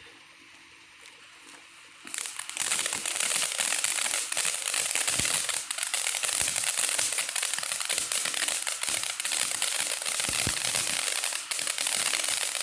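TNT Fireworks "3 Emigos" fountain catching about two seconds in, then spraying with a steady loud hiss and dense crackling.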